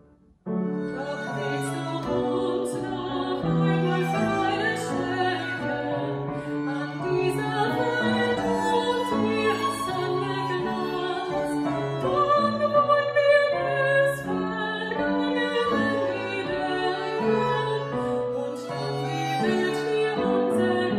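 A woman singing a song with upright piano and violin accompaniment, starting about half a second in after a brief pause.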